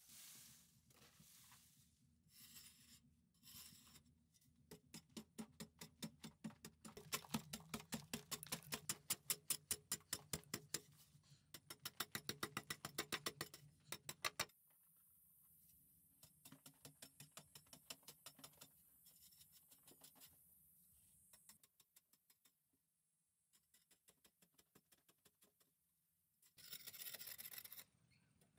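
A hand tool scraping and chipping at a packed-earth wall in quick repeated strokes, about three a second, loudest in the middle and fainter later. Near the end there is a short rush of noise about a second long.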